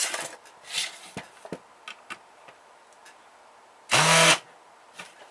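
Light clicks and knocks of a screwdriver bit and hands on a plastic electronics casing, then about four seconds in a power driver spins once, briefly, with a steady motor hum.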